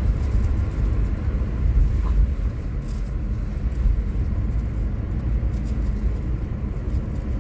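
Steady low rumble of a car driving along at road speed, heard from inside the cabin: engine and tyre noise.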